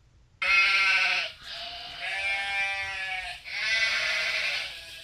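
A sheep-like bleating sound in three drawn-out, wavering parts.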